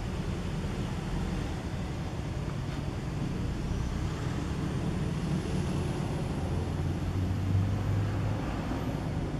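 Low, steady rumble of a motor vehicle's engine running, swelling briefly about three-quarters of the way through.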